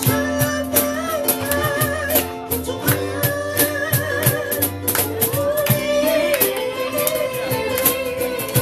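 Live ukulele ensemble music: ukuleles strummed in a steady, quick rhythm under a held, wavering melody line.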